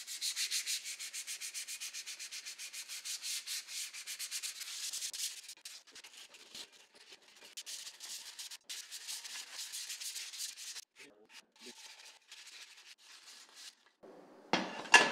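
Black-finished aluminium scooter deck being hand-sanded with a sanding sponge, to scuff the finish so acrylic paint will grip. Fast, even back-and-forth scratchy strokes at about five or six a second, slowing to sparser, quieter strokes after about five seconds. A brief louder scrape or knock comes near the end as the deck is handled.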